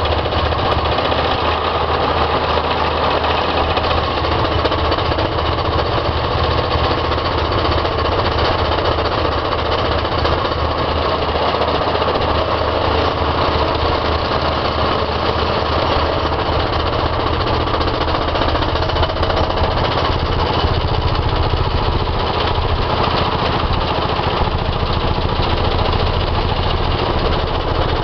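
Allied hydraulic plate compactor on a skid steer loader running, its plate vibrating rapidly and steadily against gravel, with the skid steer's engine running to drive it.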